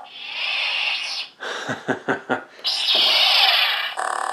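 Toy lightsaber's electronic sound effects. Two long hissing, crackling bursts frame a quick run of sharp hits about a second and a half in. Near the end the steady buzzing idle hum takes over.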